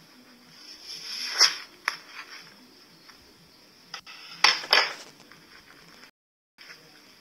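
Scissors snipping through the skin of a slime-filled ball: a few sharp snips and clicks, loudest about one and a half seconds in and again around four and a half seconds.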